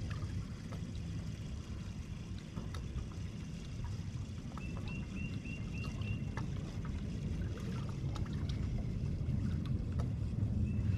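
Water lapping against a bass boat's hull over a steady low rumble, with scattered light clicks. Twice, a short run of high chirps.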